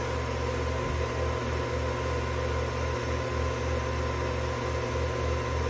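Steady running hum of a Fanuc Robodrill CNC mill, its spindle spinning a wobbler-style edge finder, with a steady whine over a low, slightly fluttering drone.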